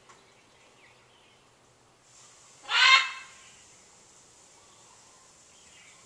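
A pet macaw gives one loud, harsh squawk, a 'kwaak', about halfway through, lasting about half a second.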